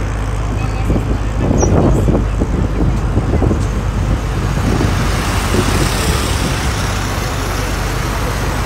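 Road traffic: a steady low rumble of vehicle engines and tyres, turning hissier about halfway through.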